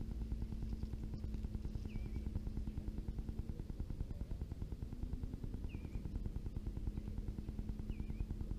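Fishing reel being cranked steadily, a fast, even ticking as line is retrieved. A bird gives a short high chirp about every two seconds.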